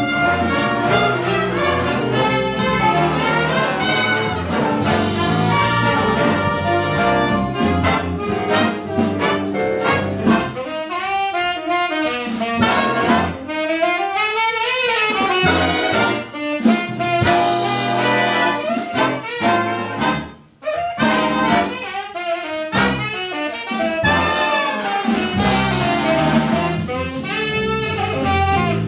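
Live big band jazz: trumpets, trombones and saxophones play together with piano and rhythm section, then a tenor saxophone solos over lighter backing, its line bending up and down. There is a brief break in the band about two-thirds through.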